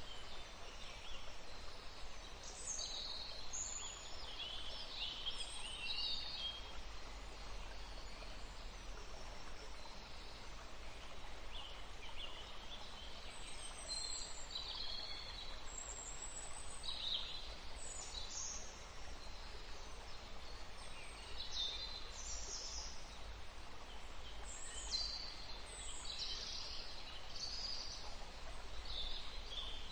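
Wild birds calling and singing in short, high-pitched phrases that come in clusters with pauses between, over a steady background hiss.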